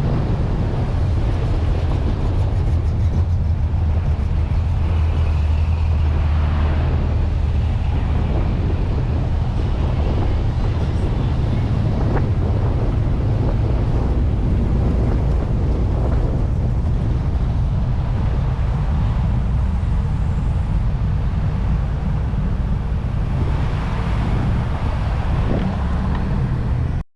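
Steady low engine and road rumble of a car being driven, heard from inside the cabin. The sound cuts off abruptly at the end.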